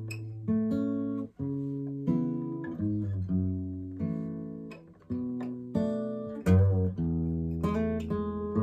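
Gibson J-45 acoustic guitar played solo: a slow melody of picked notes and chords, each struck and left to ring and fade before the next, a new one every half second to a second.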